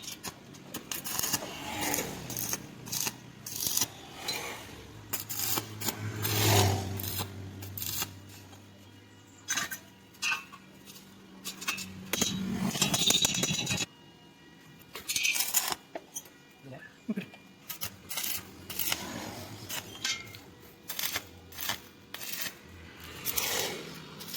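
Irregular metal clinks and knocks from working with steel square tube. A low steady hum runs through the middle for several seconds.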